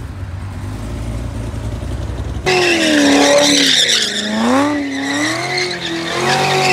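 A low steady rumble, then about two and a half seconds in, a Chevrolet Camaro doing donuts comes in much louder: its engine revs rise and fall again and again as the rear tyres squeal and smoke.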